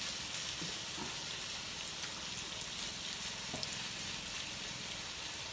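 Mala skewers sizzling steadily on a tabletop grill pan.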